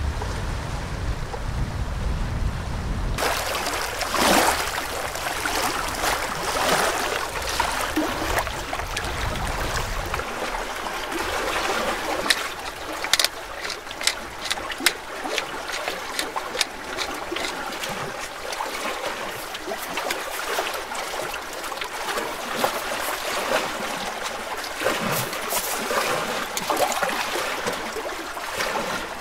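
Small waves lapping and trickling against a stony loch shore, with scattered sharp clicks and taps. A low rumble of wind on the microphone fills the first few seconds and then stops suddenly.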